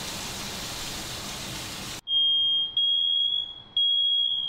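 Steak sizzling in a hot frying pan, then about two seconds in a ceiling smoke alarm goes off: a loud, high-pitched beep repeating about once a second with short gaps, set off by the cooking smoke.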